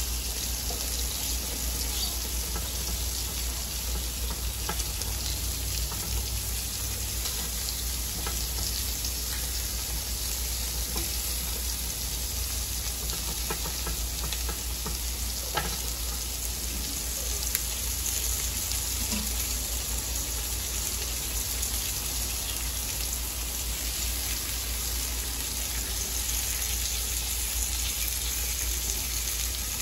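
Chicken leg quarters, basted with chicken oil, sizzling on a hot grill grate: a steady hiss with scattered crackles. There are a couple of sharp clicks from metal tongs turning the pieces about halfway through, over a low steady hum.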